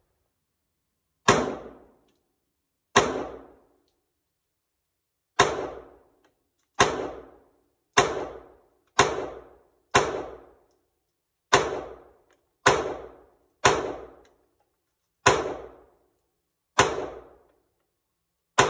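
A pistol fired thirteen times in slow, uneven succession, each shot a sharp crack with a short echoing tail from the indoor range lane.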